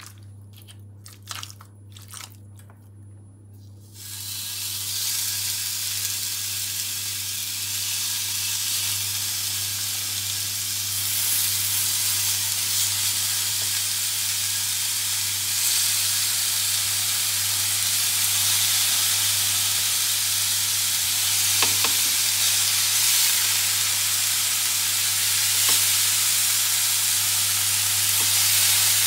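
Marinated pork sizzling on the hot ribbed plate of an electric contact grill as pieces are laid on. The sizzle starts about four seconds in and grows louder as more meat goes down, over a steady low hum.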